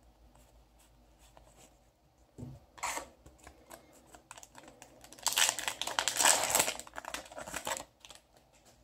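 Handling of Yu-Gi-Oh! trading cards, with a soft thump about two and a half seconds in. Then a few seconds of loud crinkling and tearing as a foil booster pack wrapper is torn open.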